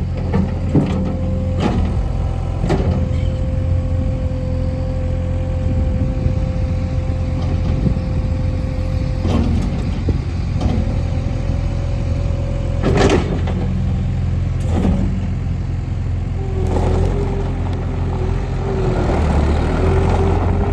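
Mustang 1650R skid steer loader's engine running steadily, with a held whine that comes and goes and several sharp clanks. Near the end the sound grows louder and rougher.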